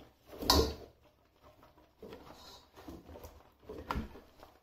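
Fried chicken pieces scraped off a plate with a ladle and dropped into a pot of gravy, with a short scrape and plop about half a second in. Soft, irregular stirring and scraping follow, and the ladle knocks sharply against the pot near the end.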